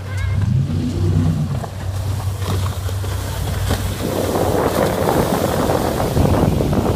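Offshore powerboat running at speed, a steady low engine drone, with the rush of its hull and spray wake growing louder over the last few seconds as it passes close by.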